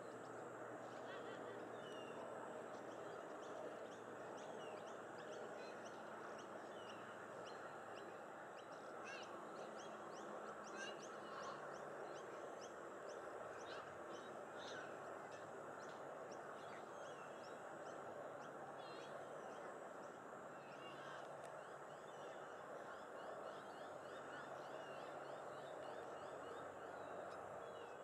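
Faint wetland ambience: a steady wash of background noise, with many short high bird chirps and chips scattered throughout and a thin steady high tone.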